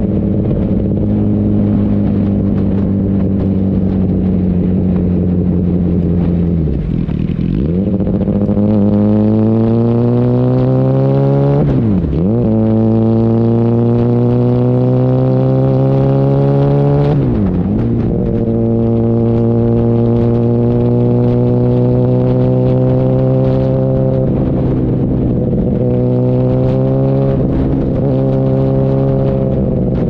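Yamaha R1's 998 cc inline-four engine running under way. The note sinks slowly, then drops sharply and recovers three times, climbing between the drops, and settles steady near the end. Wind and road noise run underneath.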